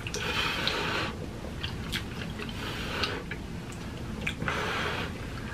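Noodles being slurped and chewed with the mouth close to the microphone: several hissy slurps of about half a second to a second, mixed with short wet clicks and smacks.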